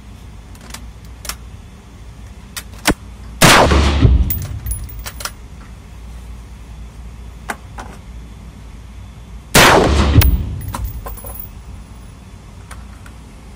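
Two gunshots from a DPMS AR-15 rifle, about six seconds apart, each ringing off hard concrete walls. A few lighter sharp clicks come before the first shot.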